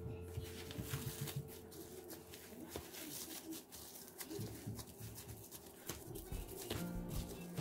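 Plastic wrap crinkling and rustling as hands press it down and fold it over rice packed into an empty Spam can used as a musubi mold, with a low wavering pitched sound underneath.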